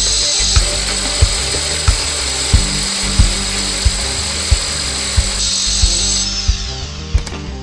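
Bosch GBH 5-40 D SDS-max rotary hammer drilling, under background music with a steady beat about every two-thirds of a second. The drill winds down and stops about six seconds in, leaving the music.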